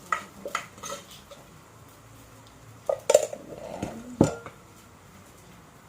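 A cooking utensil knocking and scraping against a pan as leftover rice is put in: a few light clinks at the start, then a louder cluster of knocks about three seconds in, the last one ringing briefly.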